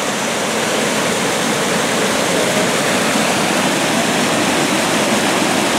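Rain-swollen water rushing and cascading down a chain of sandstone rock pools: a loud, steady rush with no let-up.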